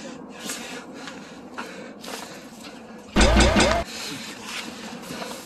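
Low ambience inside a KTX-Eum passenger car with small rustles from a handheld phone. A bit past three seconds in comes a loud, short, breathy vocal burst right at the microphone, with breath buffeting it, from someone out of breath after running.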